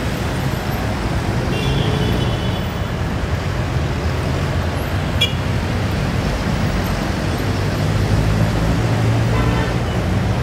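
Steady hum of busy roundabout traffic: engines and tyres of cars, vans, jeepneys and motorcycles passing. A brief high tone comes about two seconds in and a short sharp click about five seconds in.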